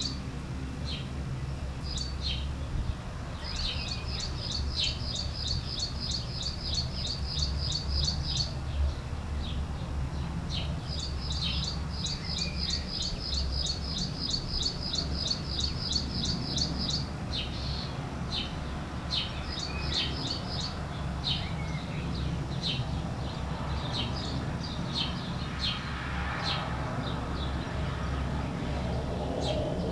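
Small birds calling: two long runs of rapidly repeated high notes, about three a second, and many short, sharp chirps scattered between them, over a steady low rumble.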